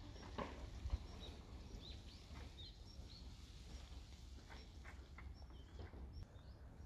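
Outdoor ambience of small birds giving short high chirps, a few at a time, over a faint low rumble. There is a brief thump about a second in.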